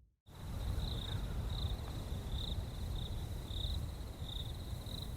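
Outdoor ambience of an insect trilling in one continuous high buzz that swells about every 0.7 seconds, over a low rushing background. It starts abruptly just after the start.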